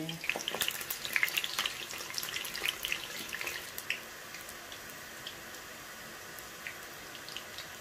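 Eggplant slices frying in hot oil in a metal wok: a steady sizzle with frequent crackles and pops for about the first four seconds, then settling to an even, quieter sizzle.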